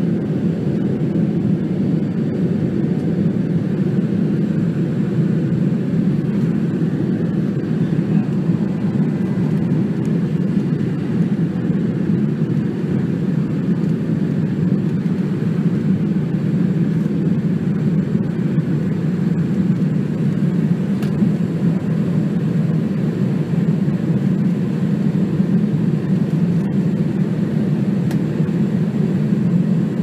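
Jet airliner cabin noise in flight: a steady, low, even drone with no changes.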